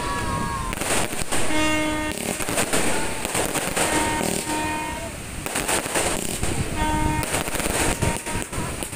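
Fireworks going off: aerial shells bursting one after another in an irregular run of sharp bangs and crackles.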